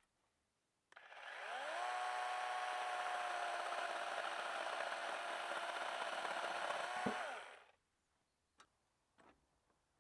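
Chainsaw starts up and runs at a steady speed for about six seconds, its pitch rising as it spins up. It dips sharply just before it cuts off.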